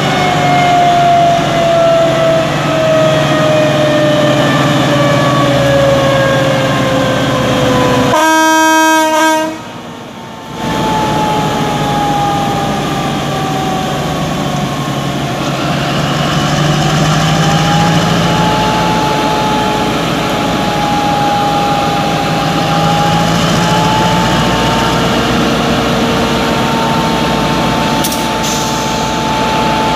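Alsthom ALS diesel locomotive's Caterpillar engine running close by, its pitch falling steadily as it throttles down. About eight seconds in comes a short horn blast, and after a brief dip the engine runs on, its pitch slowly rising and then holding steady.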